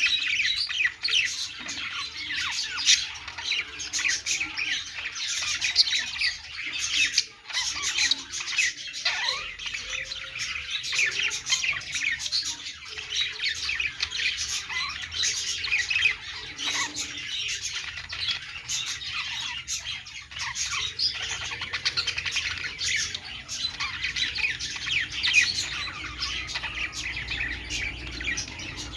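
A flock of budgerigars (parakeets) chattering without pause: many overlapping chirps, warbles and squawks.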